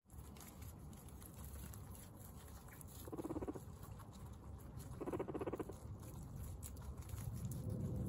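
A group of guinea pigs eating, with small chewing and pattering noises throughout. Two short bursts of rapid pulsing come about three and five seconds in.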